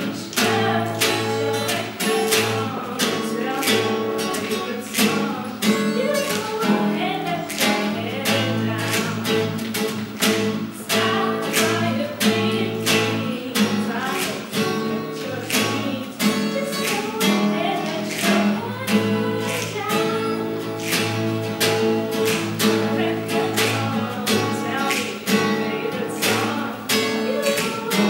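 Acoustic guitar strummed in a steady rhythm, accompanying a woman singing.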